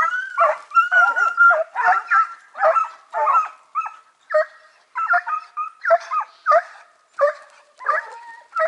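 Hunting hounds giving tongue on a hare's scent: a fast run of barks and yelps, about two or three a second, with a few longer drawn-out calls.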